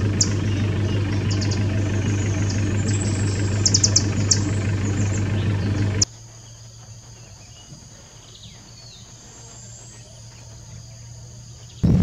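Field ambience in two parts: a steady low hum with short, sharp high bird chips, several in quick succession about four seconds in. About six seconds in the level drops abruptly to a quieter bed of a steady, high insect trill with a faint bird note or two.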